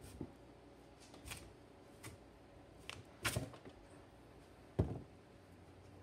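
A curved knife cutting chunks off a raw sweet pumpkin (sweet gourd), with pieces dropping onto a steel tray: about six separate crisp cuts and knocks, the loudest slice about three seconds in and a sharp knock near five seconds.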